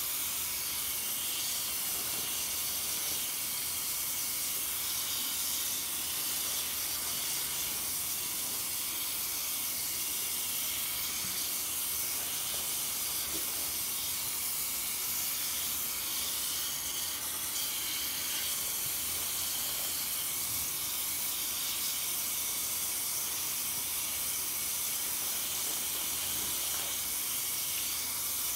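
Tap water running steadily over a soapy sponge held under the faucet and pouring into a foam-filled sink, an even hiss that does not change.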